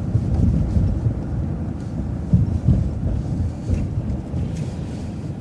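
Low, uneven rumble of a city bus driving through a left turn, heard from inside, with irregular low thumps and buffeting.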